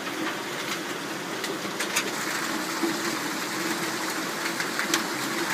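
Aluminium food-tray foil crinkling in a few short, sharp crackles as it is pressed and folded around a downpipe joint, over a steady mechanical hum.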